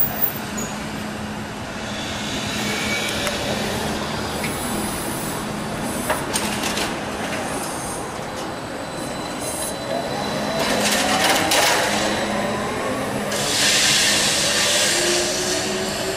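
Electric trolleybus passing close and turning, with a steady hum, a few sharp clicks, and an electric motor whine that rises in pitch as it pulls away. A burst of hiss comes about three-quarters of the way through.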